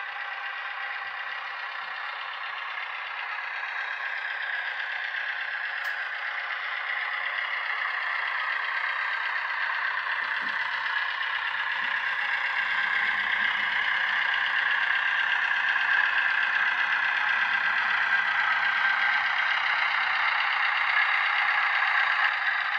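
O gauge model Fowler diesel shunter running, its steady diesel engine sound coming from the model and growing louder as it draws nearer. A low rumble of wheels on the track joins from about ten seconds in.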